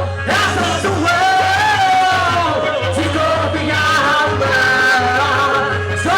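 Festa junina quadrilha music: a singer holding long notes over a band with a steady low beat.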